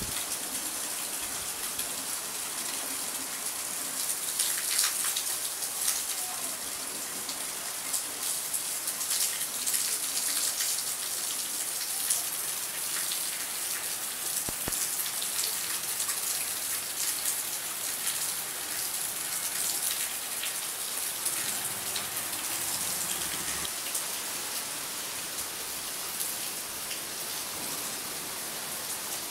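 Steady heavy rain: a dense hiss of falling water, with many close, separate drop hits standing out, thickest a few seconds in.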